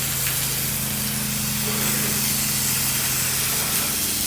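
Pressure washer spraying steadily at 8–9 gallons a minute through a long-range shooter nozzle on a J-rod: an even hiss of the water jet over the steady hum of the machine's engine and pump.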